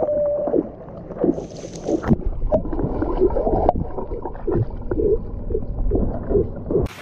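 A Pembroke Welsh Corgi splashing into a swimming pool and paddling, heard underwater: muffled gurgling and sloshing over a low rumble. It cuts off abruptly near the end.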